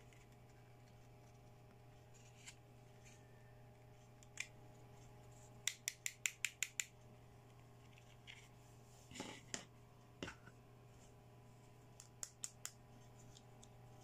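Small hard plastic pieces of a toy makeup-brush set clicking and tapping as they are handled. There are scattered single clicks, a quick run of about eight clicks near the middle, a short scrape, and a few more clicks near the end.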